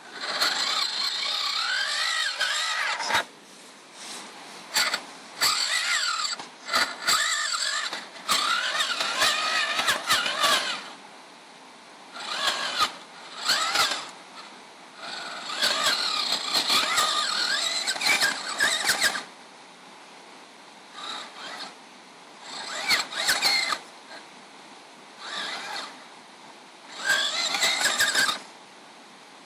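Small electric motor and gearbox of a hobby-grade RC crawler truck whining in bursts of one to a few seconds, the pitch rising and falling as the throttle is applied and released, with short pauses in between.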